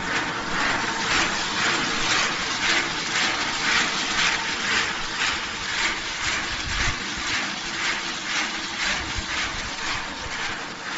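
Fried cone-shaped snack pieces tumbling and rattling inside a rotating stainless-steel drum, a rhythmic swish about two to three times a second over a steady machine hum.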